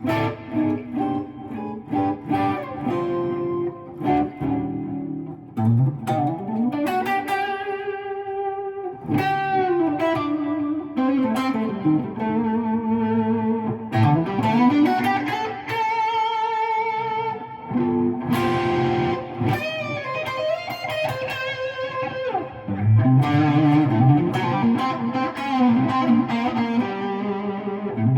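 Electric guitar, a Gibson R9 Les Paul with Custombucker pickups, played through a Friedman SS100v2 amp on its first gain channel with the gain at about 4, into a Bogner oversized 2x12 cabinet with Austin Speakerworks Crossroads speakers. It gives a mid-gain overdriven tone. The playing is a bluesy lead line with string bends and held notes with vibrato.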